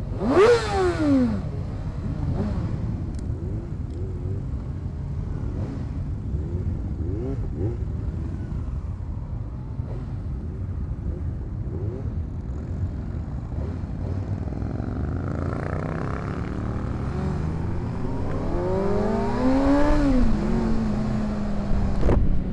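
Sport-bike engines of a motorcycle group ride: a rev that falls away sharply about half a second in, then low steady running at slow speed. From about 15 s the Kawasaki Ninja 636's inline-four climbs in revs under acceleration, peaks near 20 s and drops at an upshift to a steady drone.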